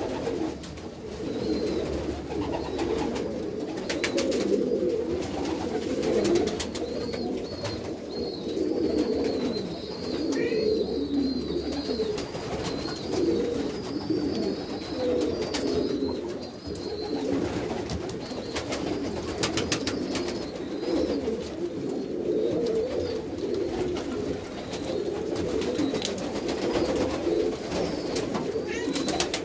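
Domestic pigeons cooing without a break, the low coos of several birds overlapping.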